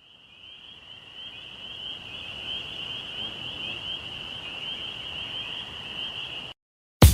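A steady high-pitched trilling chorus of small animals over a soft hiss, swelling in at the start and cutting off suddenly near the end.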